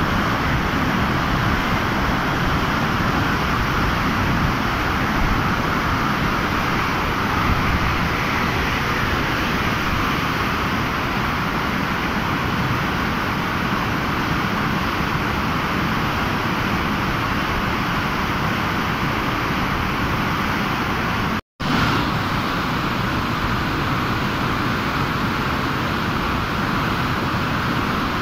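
Floodwater rushing and churning through the open gates of a river barrage: a steady, unbroken rushing noise that drops out for a split second about three-quarters of the way through.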